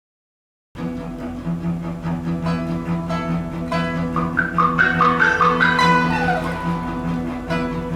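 Chinese-instrument chamber sextet of erhu, dizi, pipa, yangqin, zhongruan and cello beginning a piece about a second in. A low note is held underneath while higher notes step back and forth, with a quick falling run about five seconds in.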